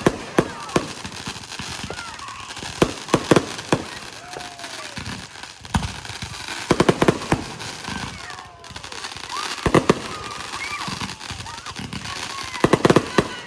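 Fireworks going off: clusters of sharp bangs in quick volleys, near the start, around 3 s, 7 s, 10 s and again near the end, over a steady crackle of further firecrackers.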